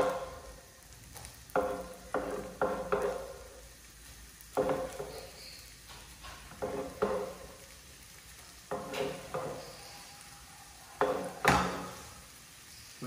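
Onion and red bell pepper scraped off a wooden cutting board into a frying pan of achiote butter and stirred, with a dozen or so separate knocks of knife and utensil on board and pan, some ringing briefly, over a faint sizzle of the vegetables frying. Near the end a knife cuts on the board.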